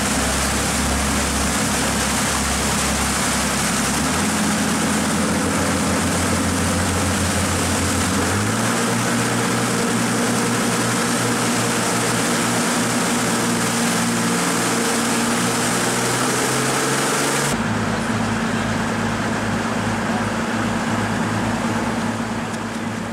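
Jet boat engine running steadily, its note stepping up twice, over a loud hiss of rushing rapids water. About three quarters through, the sound changes abruptly: the water hiss falls away, leaving a different steady engine hum.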